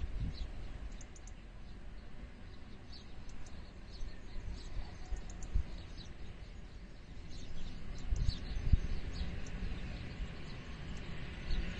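Small birds chirping now and then from the open fields, many short high calls. Underneath, wind buffets the microphone in low rumbling gusts, strongest about eight seconds in.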